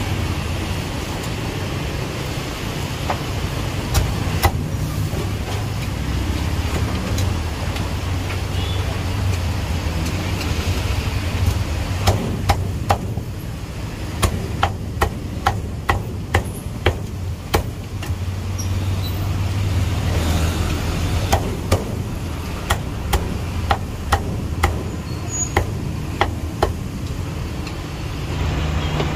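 Meat cleaver chopping roast duck on a thick wooden chopping block: sharp knocks, mostly in runs of about two a second, over a steady low hum.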